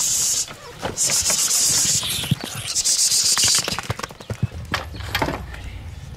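Dogs scuffling over a rat among tyres and loose boards, with repeated hissing sounds about a second long and many sharp knocks of wood and debris as boards are shifted.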